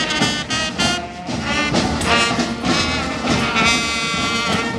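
A marching brass band playing a tune: horns and saxophones over a sousaphone.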